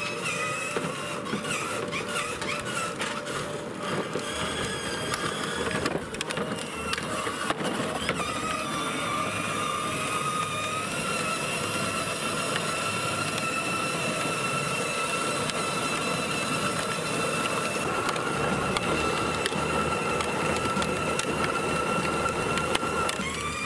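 A Fisher-Price Power Wheels Tow Mater 12-volt ride-on truck driving along: a steady high whine from its electric drive motors and gearboxes over the rumble of its hard plastic wheels on pavement. The whine steps up slightly in pitch about halfway through, and there are a few sharp clicks and knocks a few seconds in.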